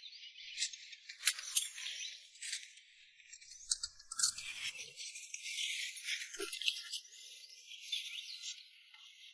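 Fairly quiet rustling and scraping with scattered sharp clicks and rattles as cardboard parcel boxes and their tie-down cords are handled, with a dull knock about four seconds in.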